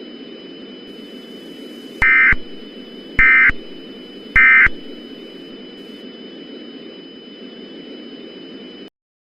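Three short electronic data bursts about 1.2 seconds apart, each a harsh warbling screech: the Emergency Alert System's end-of-message code (SAME 'NNNN'), closing the broadcast alert. They sit over a steady hiss with a thin high whine, which cuts off suddenly near the end.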